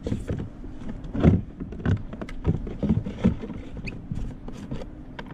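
Irregular run of knocks, clicks and rattles, the handling of gear or a fish on a kayak, over a steady low hum.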